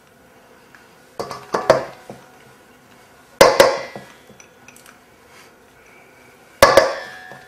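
A spatula knocking and scraping against a small dish and a stainless steel mixing bowl as mustard is scraped out, making sharp clinks with a short ring. The clinks come in three clusters: a few light ones about a second in, louder ones about halfway, and the loudest near the end.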